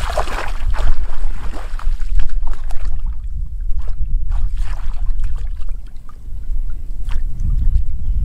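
Splashing and sloshing as a person wades barefoot and gropes with his hands in shallow muddy water, over a steady low rumble of wind on the microphone.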